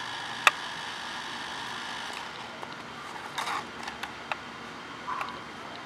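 Small electric motor of a remote-control toy car whirring for about two seconds and then stopping, with a sharp click about half a second in and a few short knocks and scrapes afterwards.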